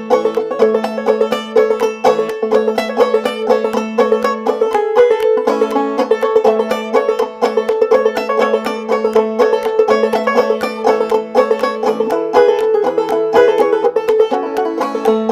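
Background music: a fast, busy banjo-led instrumental.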